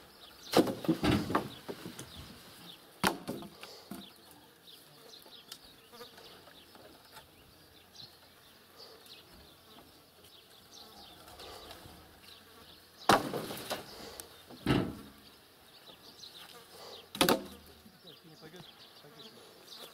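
A few scattered sharp knocks and thumps, two early, one about three seconds in and three loud ones later, over a faint outdoor background with a faint insect buzz.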